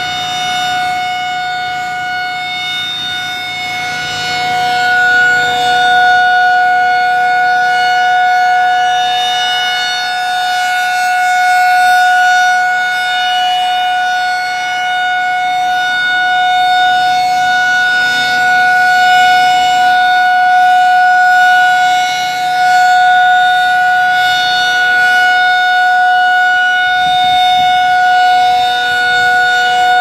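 Pole-mounted outdoor tornado warning siren sounding a loud, steady tone during a test, holding one pitch without wailing while its loudness slowly swells and fades.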